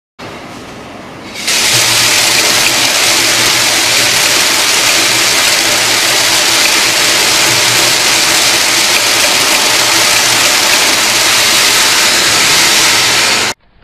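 Spring (slinky) being shaken side to side by hand while stretched along a tabletop, its coils sliding and scraping on the surface in a loud, steady hiss. It swells sharply about a second and a half in, then cuts off abruptly near the end.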